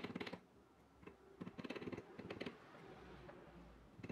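Small steel jeweller's hammer tapping rapidly on twisted brass wire laid on a steel bench block: runs of quick, light metallic taps, one right at the start and another from about one to two and a half seconds in.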